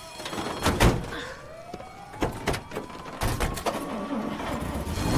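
A van's sliding door slamming shut about a second in, followed by a few knocks as people settle inside, then the van's engine starting to run louder as it pulls away. A siren wails steadily underneath, its pitch slowly rising and falling.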